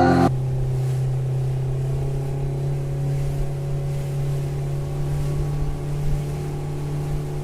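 A steady mechanical hum at one constant pitch, as of a motor or engine running, after music cuts off just at the start.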